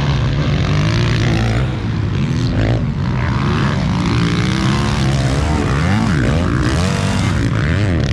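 Motocross dirt bike engines running over a steady drone, their pitch repeatedly rising and falling as they rev up and back off.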